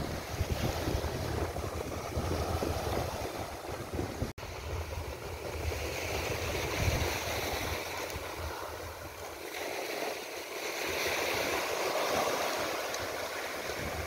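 Small waves breaking and washing up on a sandy beach. Wind rumbles on the microphone for the first few seconds, then the shot cuts and the surf swells and falls back.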